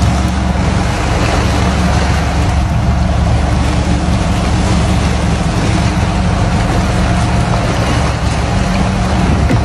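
Motorboat engine running steadily under way, with water rushing along the hull.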